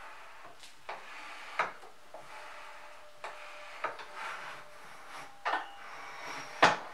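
Sliding table of a Kity 652 mortiser worked back and forth by its two hand levers: metal slides rubbing, with several sharp clacks from the mechanism, the loudest near the end.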